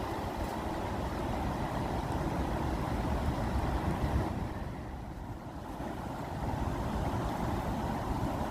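Rushing water, a steady churning noise heaviest in the low end, easing briefly about five seconds in.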